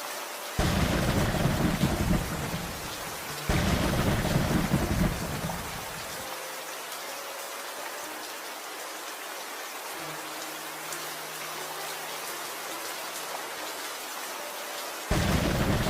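Steady rain falling, with thunder: two low rolls in the first six seconds, each starting suddenly and dying away over a couple of seconds, and a third starting near the end.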